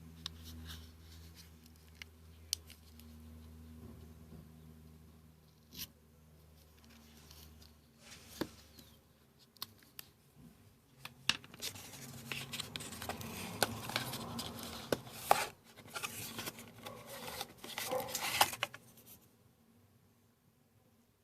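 Hands handling a phone's box and packaging: scattered sharp clicks and taps, then a stretch of dense rustling and crackling from about eleven seconds to nineteen seconds before it goes quiet.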